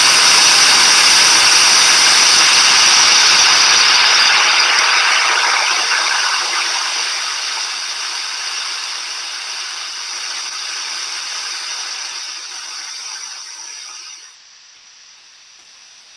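Whitewater of a river rapid rushing over rocks, a steady rush of water that grows gradually fainter and then drops away sharply near the end.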